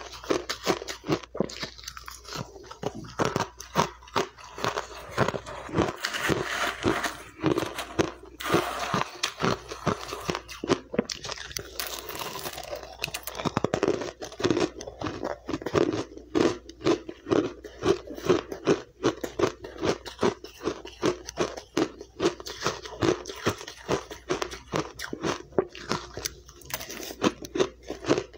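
Close-miked chewing of crushed and powdery refrozen ice: rapid, crisp crunches, several a second, as mouthfuls are bitten and ground down.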